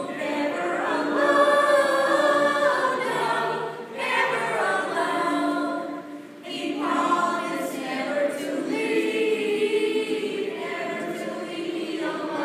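Group of young male and female voices singing together in chorus, unaccompanied, in sustained phrases with two short breaks between them.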